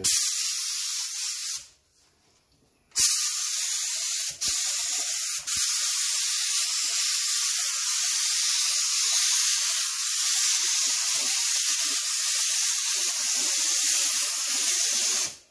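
HVLP gravity-feed spray gun with a 1.3 tip, run at about 22 psi, spraying paint. It gives a short burst of steady air hiss, then a pause of about a second, then a long continuous hiss broken twice for an instant early on, which cuts off sharply near the end as the trigger is released.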